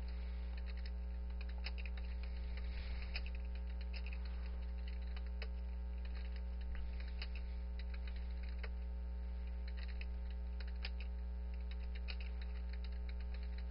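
Irregular clicking of keystrokes on a computer keyboard as commands are typed, over a steady low electrical hum.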